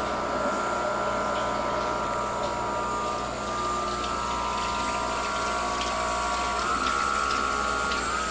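1.5 kW water-cooled spindle run by a Huanyang VFD, giving a steady electric whine that steps up in pitch twice near the end as the drive speed is raised. Under it, the steady hiss of a kitchen tap running into a steel sink.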